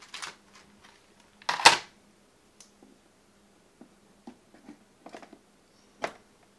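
Clear plastic packaging rustling as a G.Skill FlareX DDR4 memory module is taken out of its tray, then small clicks and taps as the module is fitted into a motherboard memory slot, with one sharper click about six seconds in.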